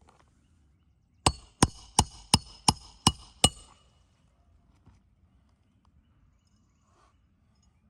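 Roofing hatchet hammering a nail into an asphalt shingle: seven quick, ringing strikes, about three a second, starting about a second in.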